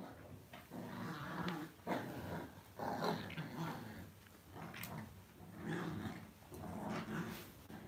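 Lhasa Apso dogs growling in repeated short bouts while tugging at a crumpled sheet together in play, with the sheet rustling and a few sharp clicks.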